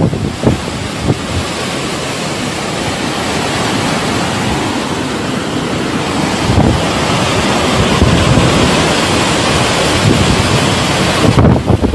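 Hurricane wind blowing hard and steadily, building slowly in strength, with low gusts buffeting the microphone.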